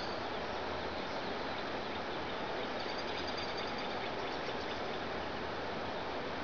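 Steady rush of flowing river water, with a few faint high chirps about three to four and a half seconds in.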